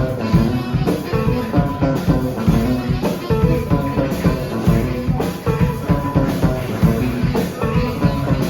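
Live band playing an instrumental passage: electric guitar over a steady rock drum beat.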